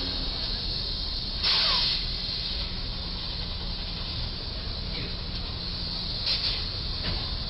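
Steady street and traffic noise, with a short loud burst of hiss about a second and a half in and a smaller one a few seconds later.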